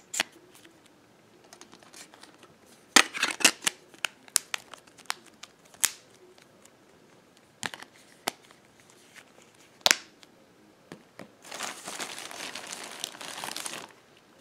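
Plastic clicks and taps from a smartphone and its plastic case being handled and snapped together, scattered through the first ten seconds with a quick run of them about three seconds in. Near the end a plastic bag crinkles for about two and a half seconds.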